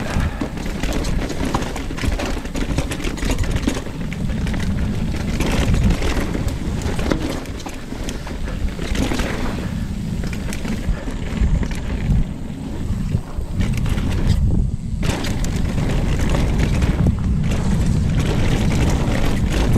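Wind buffeting a chest-mounted action camera's microphone while a Commencal Meta AM 29 mountain bike rolls down a rooty, muddy trail, its tyres and frame giving constant irregular rattles and knocks over the bumps. The rattling eases briefly about three-quarters of the way through.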